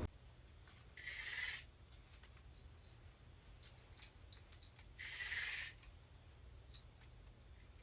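Fishing reel ratcheting in two short buzzing bursts about four seconds apart.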